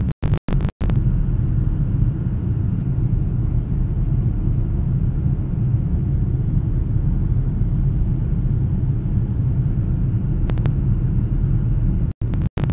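Steady low rumble of engine and airflow noise heard inside the cabin of a Boeing 787-9 in its climb after takeoff. The recording cuts out to silence several times in the first second and again near the end, a fault of the camera's audio.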